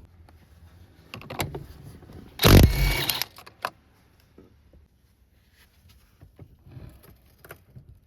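Clicks and knocks of plastic and metal parts as a car's rear seat is worked loose and removed, with one loud scraping rush about two and a half seconds in that lasts about half a second.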